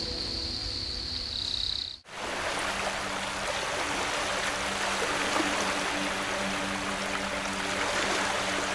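A steady rush of running water, like a stream, with a low steady hum beneath it, starting abruptly about two seconds in after a held high tone cuts off.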